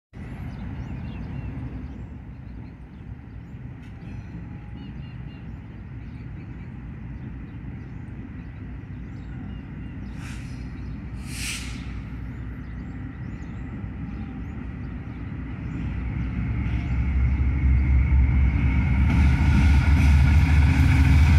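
Two GE C44EMi diesel-electric locomotives, each with a 16-cylinder GE 7FDL diesel, running as they approach hauling tank cars and coil-loaded flatcars; the engine rumble grows louder over the last several seconds as they come close. Two short hisses of air about ten and eleven seconds in.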